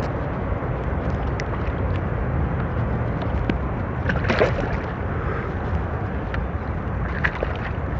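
Steady wind and water noise around a kayak, with a few short clicks and rustles of handling about halfway through and again near the end.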